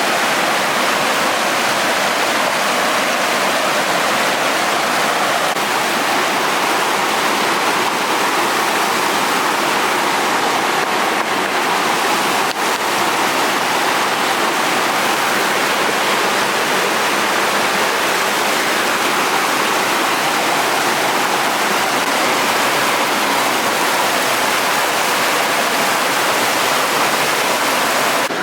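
Steady rush of a mountain stream in a gorge.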